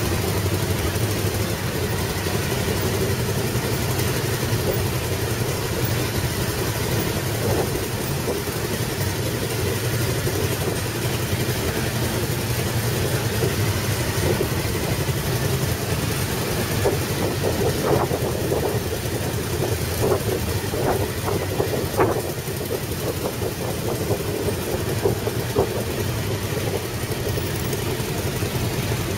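Several motorcycles riding slowly in a close procession, their engines running steadily at low revs. A few sharp knocks stand out a little past halfway through.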